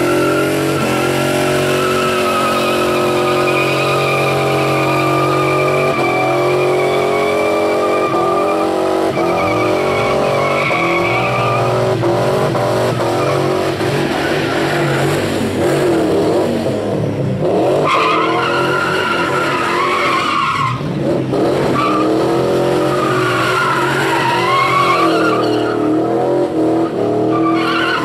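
V8 Holden Commodore doing a burnout: the engine is held at high revs while the spinning rear tyres squeal against the pad. The revs hold steady for the first half, then rise and fall with a couple of brief dips as the squeal wavers in pitch.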